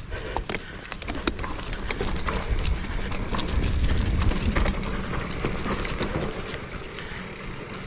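Mountain bike rolling down a rough dirt trail: tyres on dirt and stones with a constant, irregular run of clicks and rattles from the bike. A low rumble swells around the middle.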